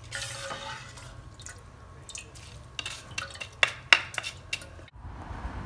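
A metal spoon stirring roasted chili flakes into hot garlic oil in a pot, with a brief hiss at the start and a run of sharp clinks of the spoon against the pot about three to four and a half seconds in. The sound stops abruptly near the end.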